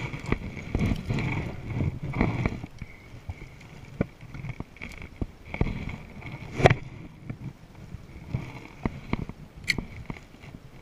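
Water sloshing against a kayak hull, with scattered clicks and knocks from a fishing rod and spinning reel being handled during a cast. One sharp knock stands out about two-thirds of the way through.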